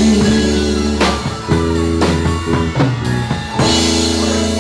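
Instrumental outro of a Cantopop song with drum kit and guitar, playing on after the singing has ended. Held chords change a few times, with drum hits near one second in and again after three and a half seconds.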